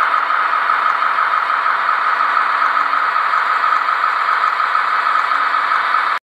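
HO-scale model train running past: the steady whir and rolling rattle of a Trix model diesel locomotive and its tank wagons on the track. The sound cuts off abruptly near the end.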